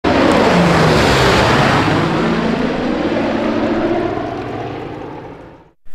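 Propeller aircraft engines running loud, then fading away over about five seconds.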